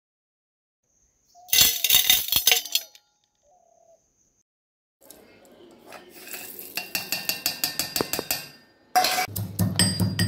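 Kitchen utensils clinking and rattling: a burst of clinks about a second and a half in, then a run of quick rattling ticks from about five seconds in. Background music with a steady beat comes in near the end.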